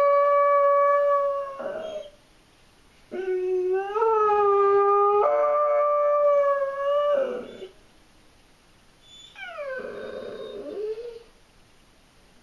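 German shorthaired pointer howling from separation anxiety: a long held howl that trails off about two seconds in, a second howl that climbs in pitch in steps, then a quieter falling whine near the end.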